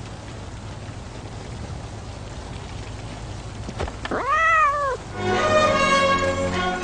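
A cat meows once about four seconds in, a long call that rises and then falls in pitch, after a few seconds of faint hiss. Music with held notes comes in right after it.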